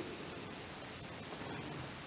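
Faint steady hiss of background noise, with no distinct event.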